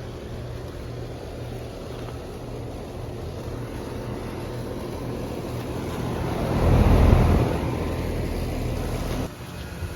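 Outdoor condensing units running with a steady hum. A louder rushing swell builds to a peak about seven seconds in, then drops off suddenly a couple of seconds later.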